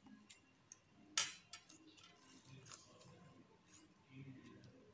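Faint crinkling and light clicks of thin plastic bag pieces being handled, with one sharper crinkle about a second in.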